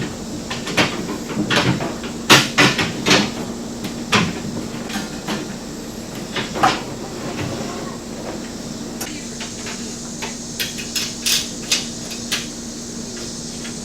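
Steel bumper parts knocking and clanking against each other as the upper section is slid onto the lower section and lined up: irregular sharp knocks and clicks, thicker in the first few seconds and again later, over a steady low hum.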